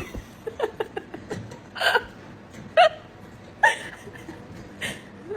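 Four short, sharp hiccup-like vocal sounds, about a second apart.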